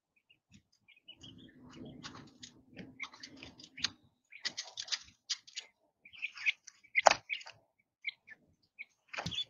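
Young quail peeping in short, high chirps, with rustling and tapping close to the microphone as a bird presses against it, and a sharp knock about seven seconds in.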